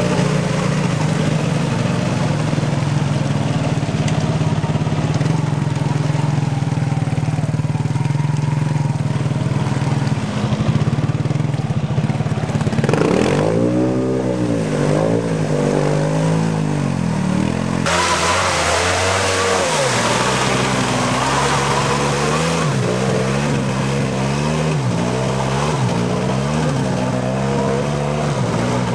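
ATV engines pushing through deep mud and water: a steady drone at first, then revving up and down again and again as the quads churn through, with water splashing around the wheels.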